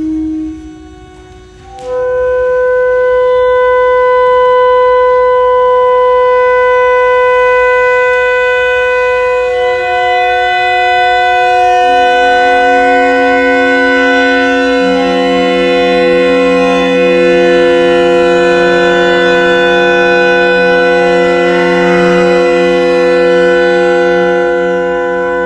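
Clarinets and alto saxophone playing long held notes in free improvisation. The first note enters about two seconds in, and more voices join one after another at lower and higher pitches, stacking into a sustained drone-like chord.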